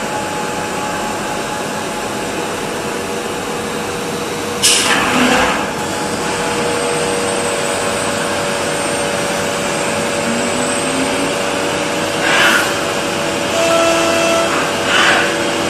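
Biesse Rover 24 CNC machining centre running as it bores holes in kitchen cabinet panels: a steady loud whir of the spindle and dust extraction. There is a sharp louder burst about five seconds in and shorter ones twice near the end.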